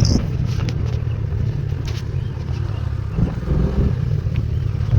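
Steady low rumble of a road vehicle in motion, with wind buffeting the microphone.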